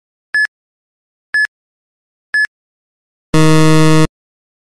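Quiz countdown timer sound effect: three short electronic beeps about a second apart, then a loud, harsh buzzer lasting under a second that signals time is up.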